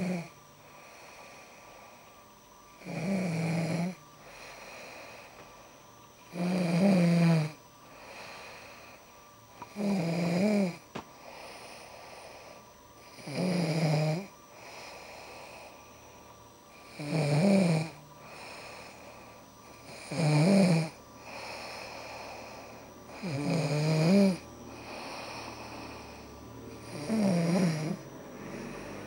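A woman snoring in her sleep: a loud, wavering snore about every three and a half seconds, eight in all, with softer breathing between.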